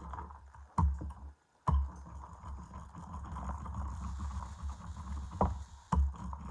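Hands working on the countertop by the camera: a low rumble with a few sharp knocks, and a plastic bag of shredded cheese rustling in the second half.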